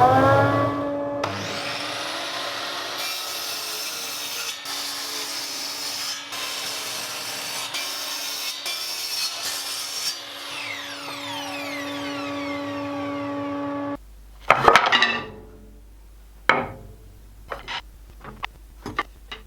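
Electric power saw running at a steady pitch and cutting through wooden boards, with a few short gaps in the cut. After that the saw's sound stops abruptly and wooden boards knock and clatter several times.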